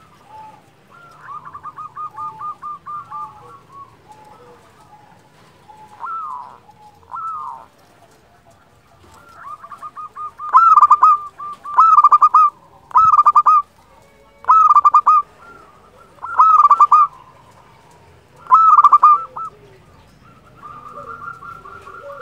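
Zebra dove (perkutut) cooing: a soft stuttering trill first, then a run of six loud, ringing coos about a second or two apart, each opening with a quick stutter, and a softer trill near the end.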